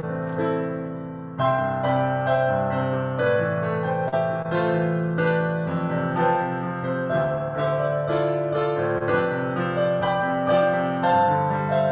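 Piano playing a slow piece in chords over held bass notes, the chords changing about twice a second, with a brief softer moment about a second in; heard over a video call.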